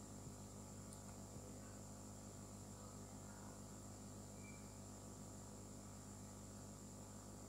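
Near silence: only a faint, steady electrical hum with light hiss underneath.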